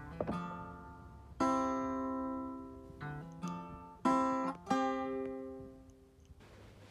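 Background music: an acoustic guitar strumming chords that ring out and fade. It stops shortly before the end.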